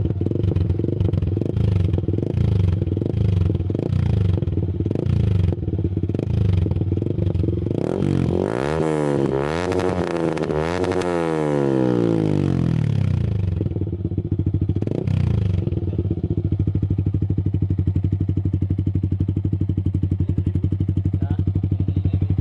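Yamaha Sniper 155 VVA's single-cylinder engine running through a Villain aftermarket exhaust canister. It idles steadily, is revved up and dropped back twice between about eight and thirteen seconds in, then settles back to idle.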